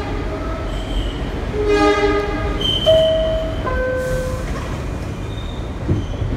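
A Bombardier-built R62A subway car running, heard from inside the car: a steady rumble of wheels on rail. Several short squealing and whistling tones from the running gear rise over it.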